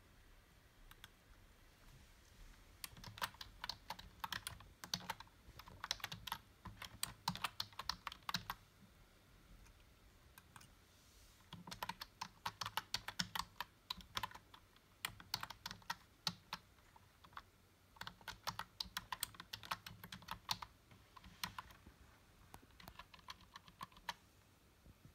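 Typing on a computer keyboard in several quick runs of keystrokes, with a pause of a few seconds near the middle.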